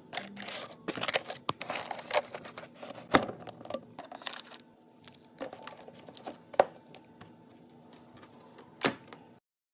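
Scattered clicks, taps and light knocks of snack packages and plastic containers being handled and set down on fridge shelves, with a few louder knocks; the sound cuts off abruptly just before the end.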